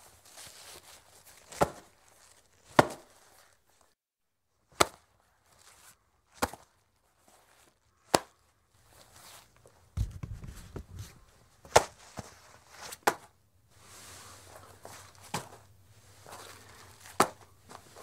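Leather tobacco pouch being handled: a series of sharp leather slaps, one every second or two, with soft leather rustling between them and a duller thump about ten seconds in.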